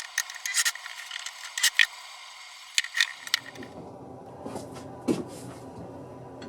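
Light metallic clicks and clinks of drill bits being handled and set into a holder. About halfway through, this gives way to a duller, steady low background with a few soft taps.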